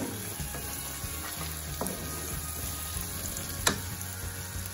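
Onion, ginger-garlic paste and spice masala sizzling in oil in a nonstick pan while a wooden spatula stirs it, the masala being fried down before yogurt goes in. A steady frying hiss with a few light clicks of the spatula and one sharp knock a little after three and a half seconds in.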